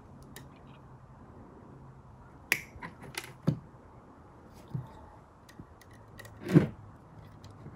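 Hands handling a Model A Ford horn's field-coil assembly and its wire: scattered small clicks and taps, with a louder knock near the end. A faint low hum runs underneath.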